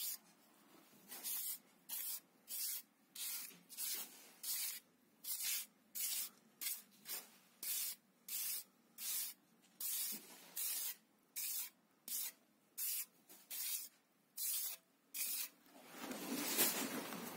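A trowel scraping along a strip of wet cement-sand screed mortar in short, even strokes, about three every two seconds, smoothing the mortar bed under a string beacon. The strokes stop about a second before the end, where a louder rustle begins.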